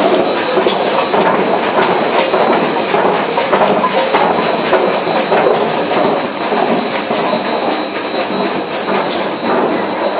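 Olive colour-sorting machine running with a steady, dense clattering rattle, with short sharp ticks at irregular intervals over it.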